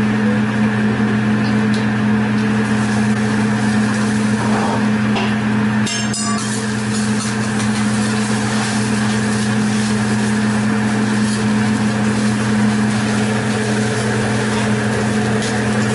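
Steady low mechanical hum, most likely the exhaust hood fan over a teppanyaki griddle, with a metal spatula scraping and tapping on the steel griddle as an egg is chopped and scrambled; a short sharp clatter about six seconds in.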